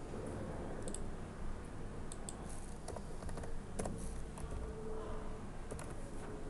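Computer keyboard keys and mouse clicks, scattered and irregular, as a date is typed into a form field, over a steady low background hum.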